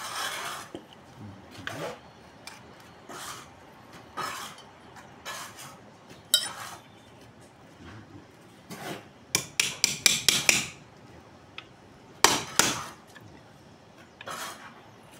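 Claw hammer knocking during bricklaying: single sharp knocks a second or so apart, a quick run of about six strikes around ten seconds in, then a couple more.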